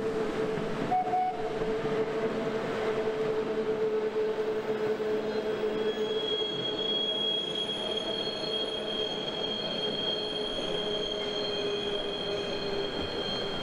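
The Train Jaune, an electric metre-gauge mountain train, running past with a steady hum. A thin, high-pitched wheel squeal joins from about halfway through.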